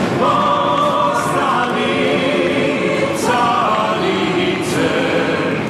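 Choral singing in held notes that move to a new pitch every second or so, with a few short, high, hissing hits mixed in.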